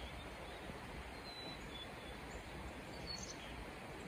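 Small songbirds giving a few short, high chirps, the clearest about three seconds in, over a steady faint background hiss.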